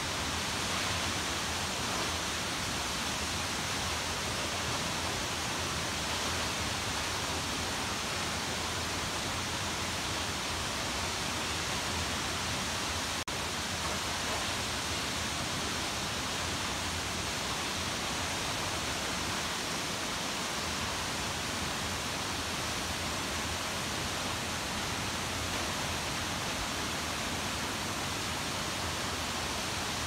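Waterfall pouring steadily into its pool: an even, unbroken rush of falling water.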